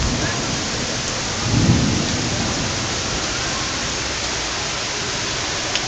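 Heavy thunderstorm downpour falling steadily, with a short low rumble of thunder about a second and a half in.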